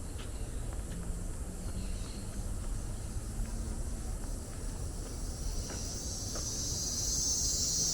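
High-pitched insect buzzing from the surrounding tropical forest that swells markedly louder over the last couple of seconds, over a steady low rumble.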